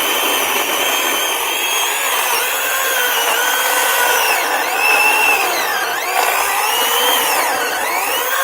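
Greenworks 80-volt battery chainsaw fitted with a new carbide chain, cutting into a log. The motor's whine dips in pitch several times as the chain bites under load and recovers, then stops abruptly at the end.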